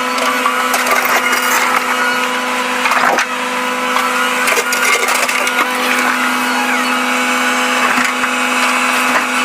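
Volvo 360 excavator at work: its engine and hydraulics hold a steady drone while irregular cracks and scrapes come through, sharpest about three seconds in and near eight seconds.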